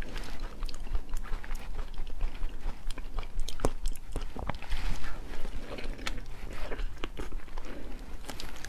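Close-up mouth sounds of eating durian flesh: chewing with many short, sharp clicks of the lips and tongue throughout.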